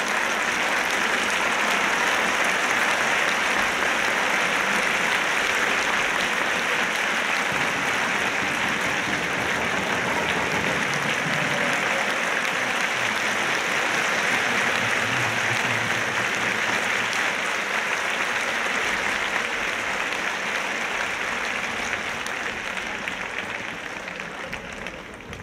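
Crowd applauding steadily, dying away near the end.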